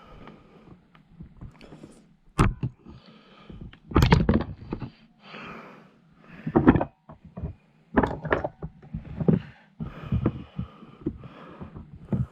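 Plastic speed clips on the back of a Saab 9-5 door panel being forced and snapped off to free the door pull handle: a series of sharp cracks and knocks with plastic handling noise between, the loudest about four seconds in and again near seven seconds.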